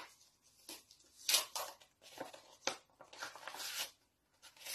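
Stiff white paper envelope and card rustling and crinkling in several short bouts as they are handled.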